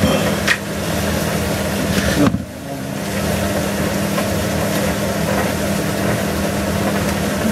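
Steak sizzling in a hot frying pan, an even hiss over a steady low hum, briefly dipping a little over two seconds in before carrying on.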